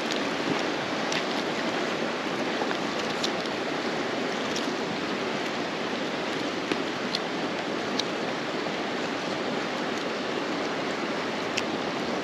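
Wood campfire crackling, with a handful of sharp pops scattered through, over a steady rushing background noise.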